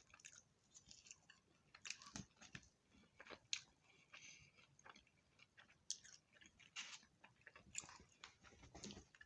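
A person chewing a mouthful of food close to the microphone: faint, irregular crunches and wet mouth clicks.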